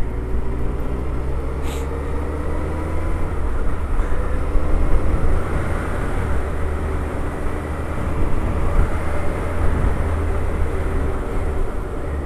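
Suzuki Hayabusa's inline-four engine running at a steady cruise, with a deep low rumble under wind and road noise. The engine note rises gently in pitch over several seconds.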